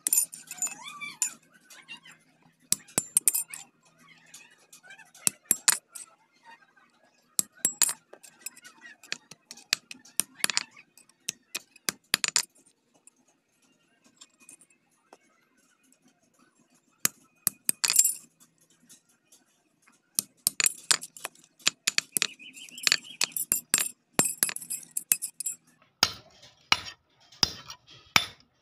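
Hammer striking steel on a steel block anvil: irregular clusters of sharp metallic clinks as a thin knife blade is tapped flat, with a quiet pause in the middle. Near the end come heavier, duller blows as a chisel is driven into a rusty steel sheet.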